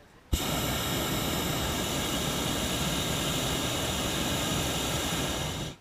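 Hot-air balloon's propane burner firing: a loud, steady roar that starts suddenly about a third of a second in and cuts off just before the end, one blast of about five seconds.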